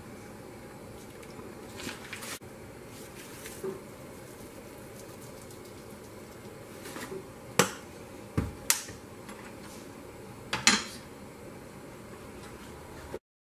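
Kitchen clatter at a large cooking pot: a handful of short, sharp clinks and knocks as seasonings and butter are added, the loudest two a little past halfway and near the end, over a steady low background noise. The sound cuts off suddenly just before the end.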